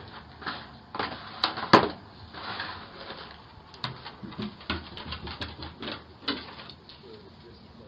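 A large dog's claws clicking on wooden porch boards and a cardboard pizza box knocking and scraping as the dog handles it and carries it off: a string of irregular clicks and scuffs, with the sharpest knock just under two seconds in.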